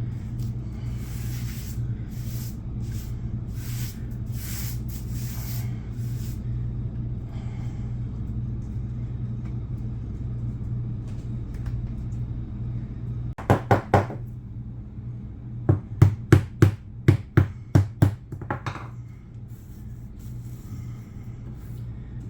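Leftover carpet staples being worked out of the floor: scraping noise at first, then sharp tapping as they are knocked down, three quick strikes followed by a regular run of about eight, roughly three a second. A steady low hum runs underneath.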